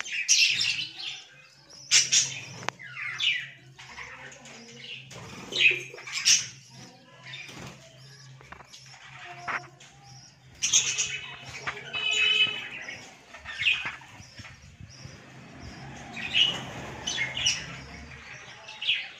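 A flock of budgerigars chirping and chattering in a colony cage, in short, sharp high calls at irregular intervals. A low steady hum sits underneath.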